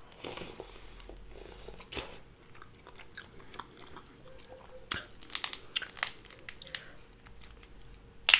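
A person chewing Dungeness crab meat, with small wet clicks and crackles. Just before the end a crab leg shell is snapped by hand with a sharp crack.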